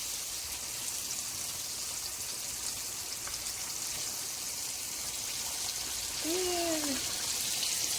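Chicken tenders frying in hot oil in a pan: a steady crackling sizzle. A brief hummed voice sound about six seconds in.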